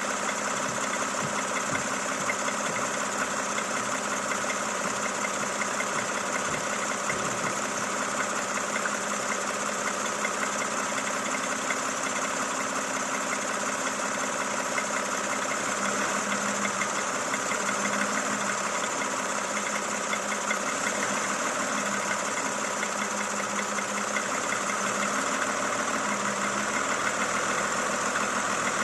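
Toyota Camry XV70's 3.5-litre V6 engine running steadily, likely at idle, with a fast, regular ticking knock over the engine note. The owner reports this knock as a fault in a car with only 30,000 km.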